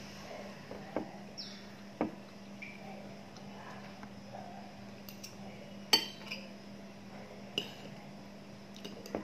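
Metal spoon and fork clinking and scraping against a ceramic bowl while scooping fried rice, with about five sharp clinks. The loudest comes about six seconds in. A steady low hum runs underneath.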